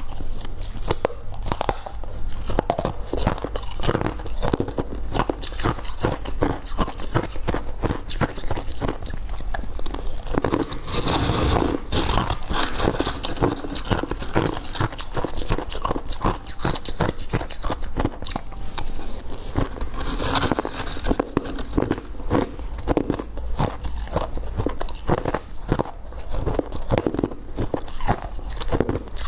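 A person biting and chewing hard ice and freezer frost, close-miked: a steady run of rapid crunches, with a few louder bites in the middle.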